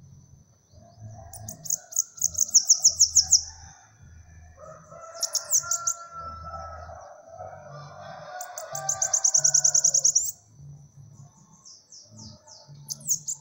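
Caged bananaquit (sibite) singing: four bursts of song, each a rapid high-pitched trill of repeated notes lasting up to about two seconds, with short gaps between.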